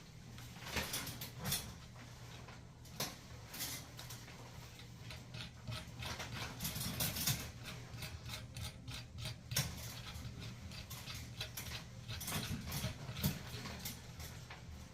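Irregular clicks, taps and scrapes of toilet parts and hand tools being handled, over a faint steady low hum.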